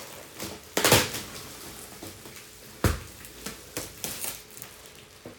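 Clear plastic packaging film rustling and crinkling in short bursts as it is pulled off a large boxed appliance, with a single low thump about three seconds in.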